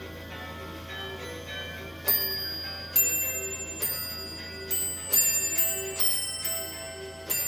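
Bright bell-like chime notes struck one after another at changing pitches, about one to two a second, each ringing on, over soft background music.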